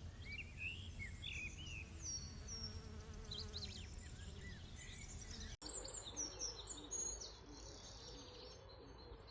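Garden ambience of small birds chirping and insects buzzing over a low background rumble, with a brief dropout a little past halfway where the background changes.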